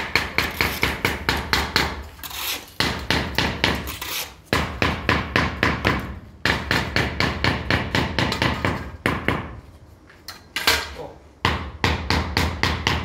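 Small hammer tapping São Tomé stone flagstones in quick runs of about six taps a second, each run lasting a second or two with short pauses between, bedding the stones into the mortar to bring them level with a straightedge.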